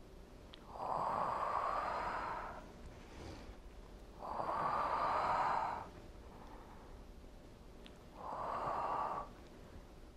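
A woman breathing hard and audibly through the exertion of double leg raises: three long, noisy breaths, each lasting one to two seconds, about three and a half seconds apart.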